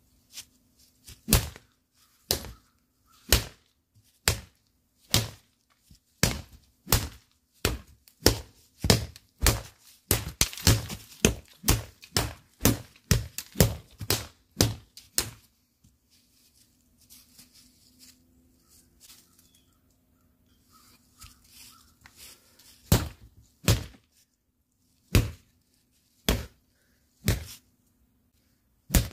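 A 3/4-inch Callery pear wood stick striking a rubber training dummy again and again as a strength test, each blow a sharp thunk. The strikes come about once a second, quicken to about two a second for several seconds, stop for a few seconds, then resume as a handful of spaced blows near the end.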